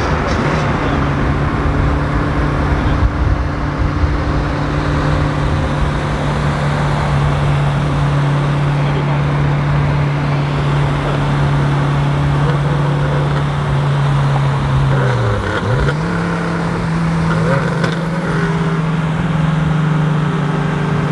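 Engine of a 2JZ inline-six swapped into a Nissan 370Z, heard inside the cabin over road and wind noise, holding a steady note while cruising. About fifteen seconds in the note drops briefly and comes back a little higher, like a downshift.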